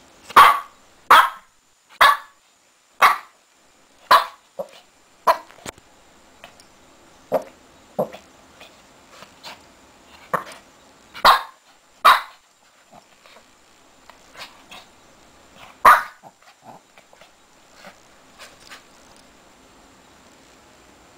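Six-month-old Shih Tzu puppy barking in play: short, sharp yaps, about one a second at first, then more scattered, with the last loud one about 16 seconds in.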